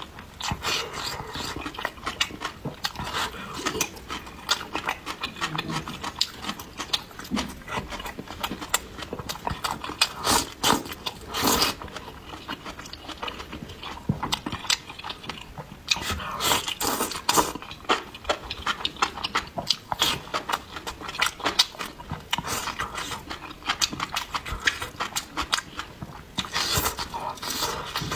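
Close-miked eating: wet chewing, smacking and slurping of spicy stir-fried beef fat, enoki and greens, with dense quick mouth clicks and several louder slurping stretches.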